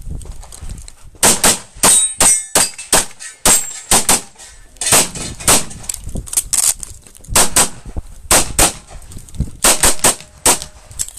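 Semi-automatic pistol fired rapidly, about two dozen shots, mostly in quick pairs (two shots per target) with short gaps between strings.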